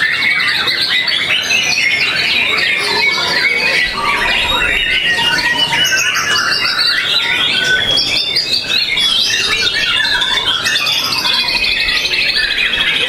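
White-rumped shama (murai batu) singing continuously: a dense, unbroken run of varied whistles, quick sweeping notes and rapid trills, with a fast high trill near the end.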